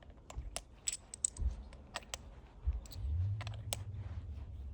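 A string of sharp, irregular clicks and light knocks from handling a large revolver and its cartridges. A low rumble joins them about three seconds in.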